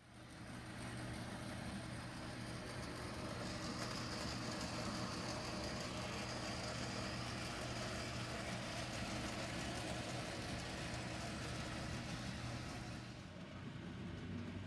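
Model B&O steam locomotive running on a layout: a steady hiss over a low hum, with no clear chuff rhythm. The hiss thins about 13 seconds in.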